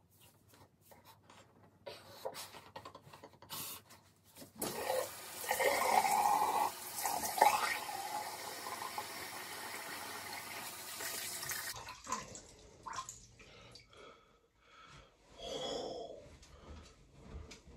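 Shower water spraying onto a man's head as he wets his hair. It starts about four and a half seconds in, after a few knocks, and cuts off abruptly about twelve seconds in.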